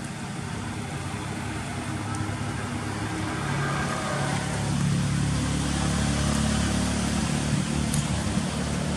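Engine of a road vehicle passing on the road, a steady low hum that grows louder about halfway through and eases off near the end.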